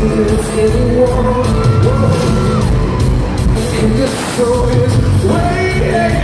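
Live rock band playing with a male lead vocalist singing over drums and guitars, recorded from within the concert audience.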